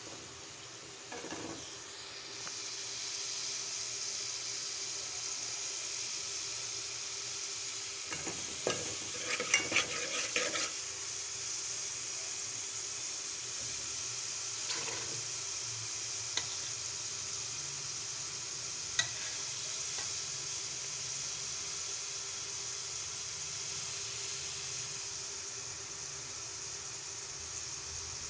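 Sliced onions sizzling as they fry in hot oil in an aluminium pot: a steady hiss that grows louder about two seconds in. About a third of the way through, a steel ladle stirs and scrapes against the pot in a quick run of clatters, and two single clinks follow later.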